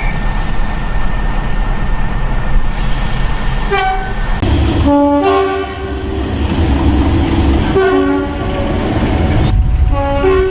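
Train running with a steady rumble; from about four seconds in its two-tone horn sounds repeatedly, switching between a high and a low note, first in a long sequence and then in shorter blasts.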